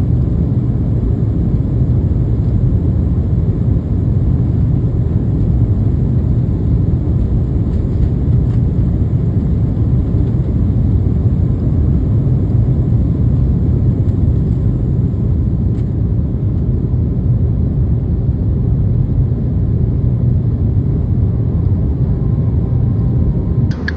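Steady engine and airflow noise inside the cabin of an Airbus A321-200 airliner, a loud, even low rumble that does not change. It breaks off with a few sharp clicks right at the end.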